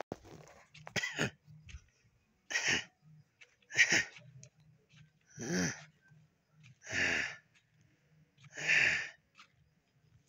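An ox (bull) in masti, the worked-up state of the cold-weather season, blowing out six hard, noisy breaths through its nose, about one every one and a half seconds.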